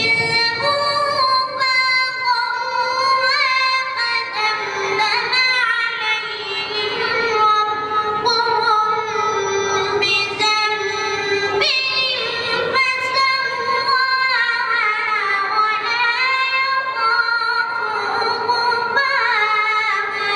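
A high solo voice singing or chanting unaccompanied, in long held notes with wavering, melismatic ornaments that slide between pitches.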